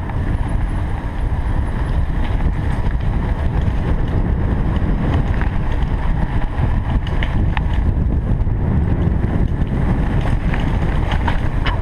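Wind buffeting the microphone of a mountain bike riding fast downhill on a paved lane, a steady low rumble, with a few small clicks and rattles from the bike.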